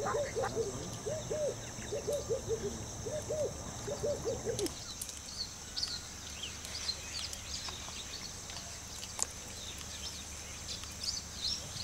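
An animal calling in quick runs of short barks, which stop about five seconds in. After that, small birds chirp sporadically over a steady high insect drone.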